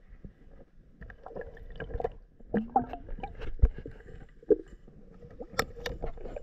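Irregular clicks, knocks and scrapes heard underwater as a thin fishing rod works among submerged sticks and gravel around a river prawn. The sharpest knocks come about three and a half and five and a half seconds in. A brief gurgle and a faint steady hum sit underneath.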